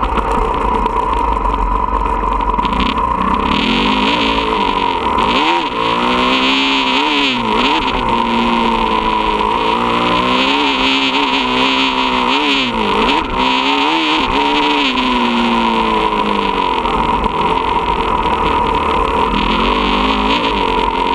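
Motocross dirt bike engine heard onboard during a practice lap, revving up and easing off again and again as the rider works through the track.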